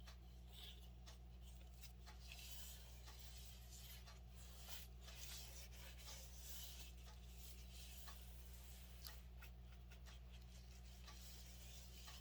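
Near silence: a steady low hum under faint rubbing and scattered light ticks.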